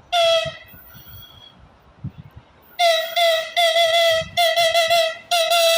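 Freight locomotive's high-pitched whistle sounded as a greeting: one short toot, then after a pause four blasts in quick succession, the last still sounding at the end.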